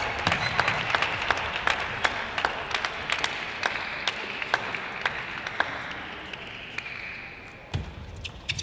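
Spectators applauding in a hall, the clapping dying away over several seconds to a few scattered claps near the end.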